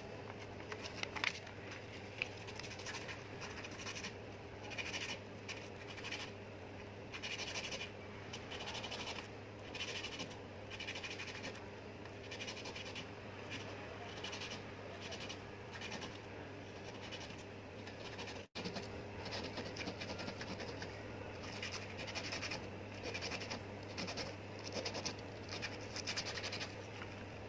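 A small metal part of a pneumatic chipping hammer rubbed back and forth by hand on a sheet of sandpaper laid flat on a metal bench: a steady run of scratchy strokes, about one or two a second. The part is being smoothed so it no longer drags.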